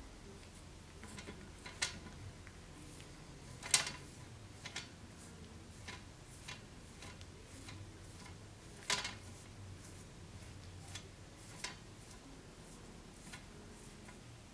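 Faint, irregular small metal clicks and clinks as a forged steel wolf-head pommel is handled and fitted onto the end of a sword's tang, with two louder clinks about four and nine seconds in.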